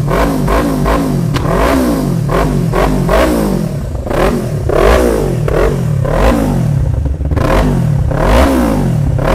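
Yamaha YZF-R3's 321 cc parallel-twin engine being revved with quick repeated throttle blips, rising and dropping back over and over, through a LeoVince aftermarket exhaust.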